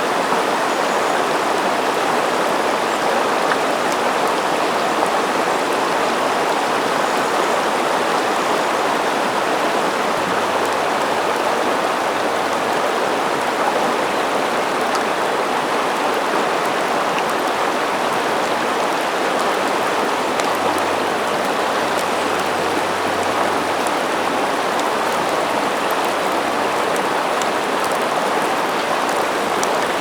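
River water flowing: a steady, even rush of moving water.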